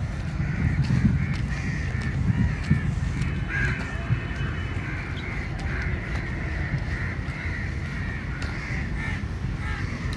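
Many crows cawing together in the trees, a continuous chorus of overlapping calls, over a low rumble.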